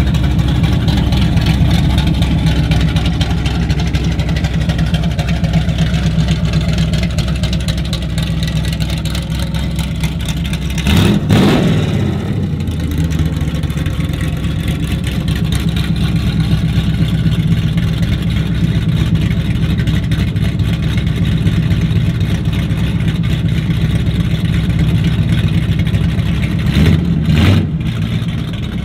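Classic Plymouth muscle car's engine idling loud through its dual exhaust. There is a quick throttle blip about eleven seconds in and another near the end.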